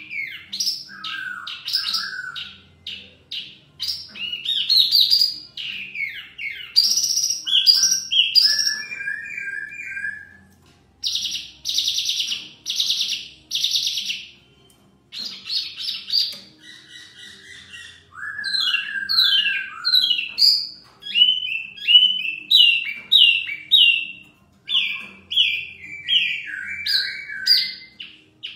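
Caged wambi mini (hwa mei mini) singing loud, varied phrases of rapidly repeated whistled and chattering notes, trading songs with a poksay laughingthrush. The song breaks off in short pauses, about ten and fifteen seconds in.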